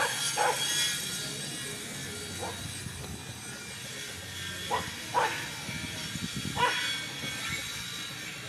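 Dogs barking during a standoff: about six short barks, two of them quick pairs, the others single, over a steady background hiss.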